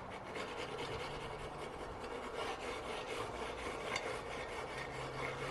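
Wire grill brush scrubbing the cooking grate of a Weber Smoky Joe kettle grill, a steady run of quick rasping metal-on-metal strokes as the grate is cleaned off.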